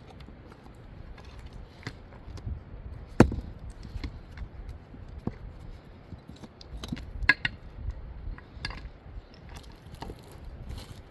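Irregular knocks and clicks of objects being handled, with one sharp, loud knock about three seconds in and another near seven seconds.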